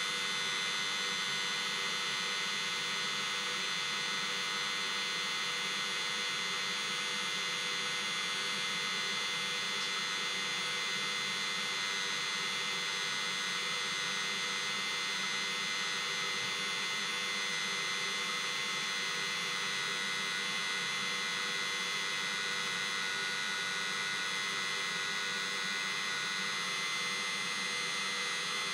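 The diesel-fired auxiliary block heater of a 2016 Mercedes Sprinter, running steadily with a jet-like whine from its fan. It keeps running after being switched off, a cool-down run before it stops.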